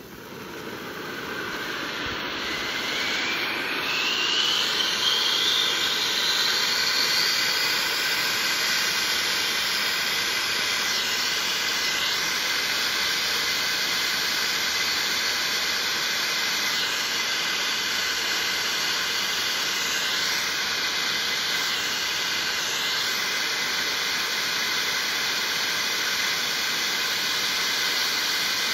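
Funke 7M three-stage ground fountain firework burning: a steady rushing hiss of sparks that builds over the first few seconds. A thin whine rises in pitch about two to four seconds in.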